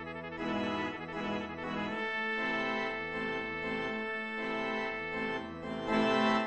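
Synthesized accordion and trumpet playing a Jewish-flavoured mambo with a steady dance beat. The music rises to a louder held chord about six seconds in, which is the piece's closing chord.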